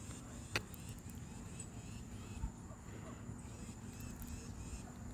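Faint outdoor ambience with a steady high-pitched hum over a low hum, broken by a sharp click about half a second in and a soft thump near the middle.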